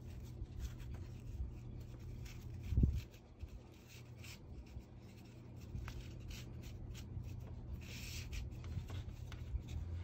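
Braided cord rubbing and sliding through the turns of a monkey's fist knot as the slack is pulled out by hand, faint scratchy rustling with one soft bump a little under three seconds in.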